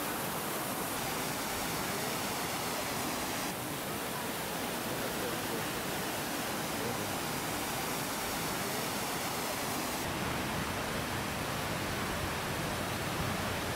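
Steady broad hiss with no distinct events, its brightness shifting abruptly about a second in, at about three and a half seconds, and again at about ten seconds.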